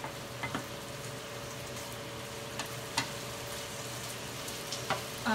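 Steak bites and zucchini noodles sizzling steadily in a skillet as the sauce reduces, with a few light clicks of a spatula against the pan.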